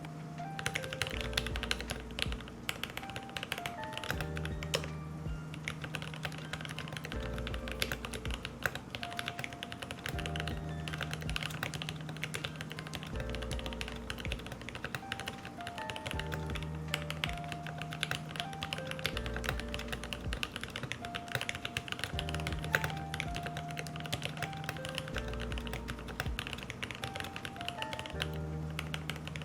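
Continuous fast typing on a TOKYO60 mechanical keyboard with lubed, filmed Noir Rose linear switches: a dense stream of muted keystroke clacks. Background music with a repeating bass line plays underneath.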